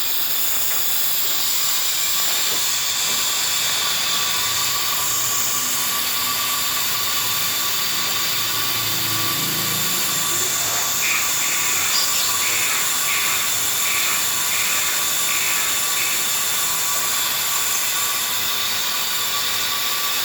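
Steady hissing, whirring machine noise in a car service workshop, with a run of about seven short, evenly spaced high tones near the middle.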